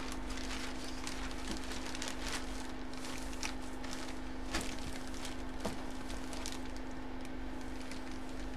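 Faint scattered clicks and rustles of trading-card packaging being handled, over a steady low electrical hum.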